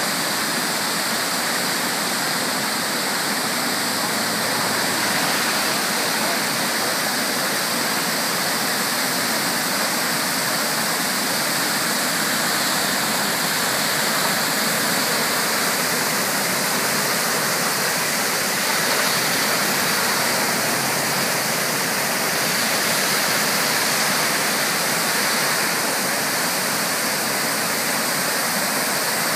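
Floodwater pouring over a wall and rushing through a flooded channel: a loud, steady rush of churning, turbulent water.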